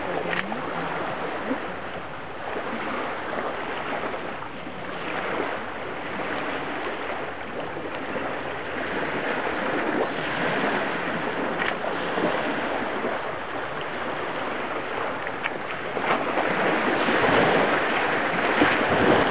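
Steady rushing outdoor noise of wind and lake water, growing louder in the last few seconds.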